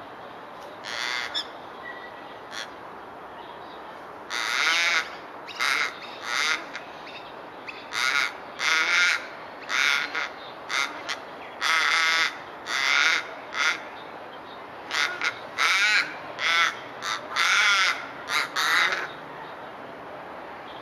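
Australian raven giving a long series of short, harsh calls, one or two a second with brief pauses between groups.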